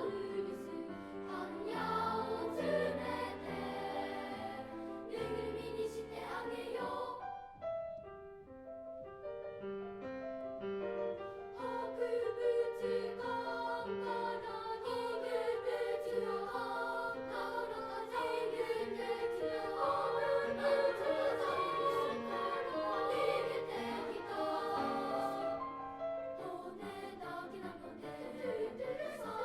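Children's choir singing in parts with piano accompaniment. About eight seconds in, the sound thins to short, separate notes for a few seconds before the full choir comes back in.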